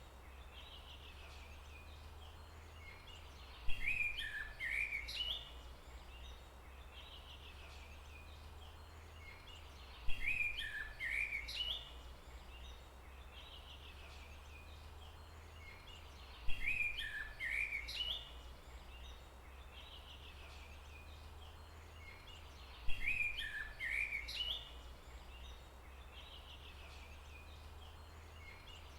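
A songbird singing the same short phrase of quick falling notes about every six seconds, four times, over a steady low background rumble.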